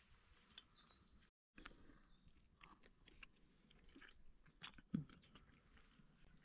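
Faint eating sounds: chewing and scattered small clicks, with one louder knock about five seconds in.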